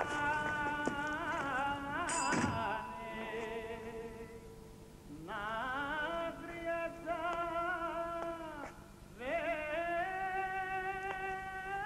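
Music with a solo voice singing long, wavering held notes in phrases. There is a single thump about two seconds in.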